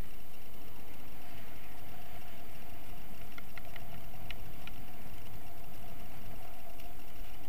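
Steady wind rush and rumble on a buggy-mounted camera's microphone as a kite buggy rolls across sand, with a few light clicks about three to five seconds in.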